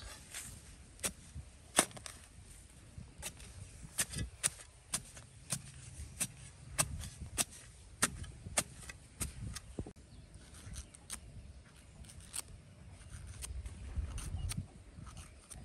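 A short-handled metal digging tool chopping into dry, clumpy soil: a run of sharp strikes, roughly two a second, thinning out near the end.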